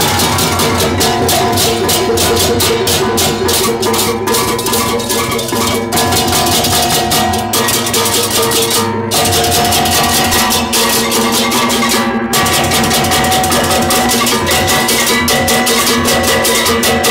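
Balinese gamelan baleganjur playing: fast, dense clashing of cengceng hand cymbals over ringing gong tones and kendang drums. The cymbal clash drops out for a moment twice, about nine and twelve seconds in.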